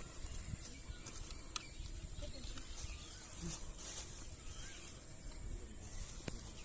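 Outdoor ambience: a steady high hiss with a low rumble, scattered sharp clicks and a few faint chirps.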